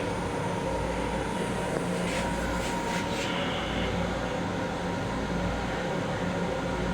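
Steady rumble and hum of a Long Island Rail Road M7 electric railcar heard from inside the car, with a few short hisses about two to three seconds in.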